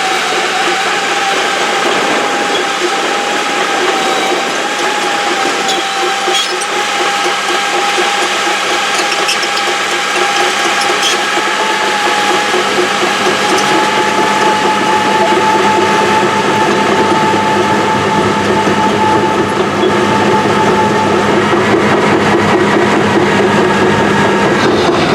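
Old Caterpillar heavy-equipment diesel engine running steadily with a mechanical rattle and a steady whine, which rises slightly in pitch partway through.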